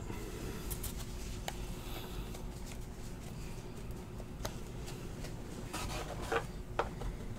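Paper trading cards being handled and thumbed through in the hand: a few scattered soft clicks of card edges over a low, steady hum.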